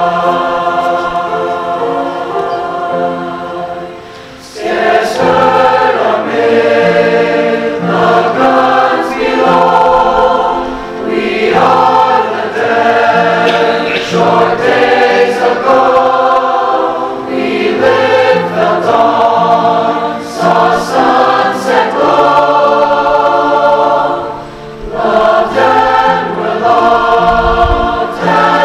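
Mixed high school choir singing a slow piece in sustained phrases over instrumental accompaniment. It opens softly, swells to full voice about four seconds in, and breathes briefly between phrases.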